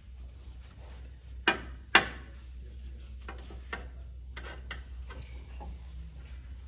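Metal clicks of a 14 mm socket wrench working on a brake caliper bolt: two sharp clicks about half a second apart, then several fainter, irregular ticks.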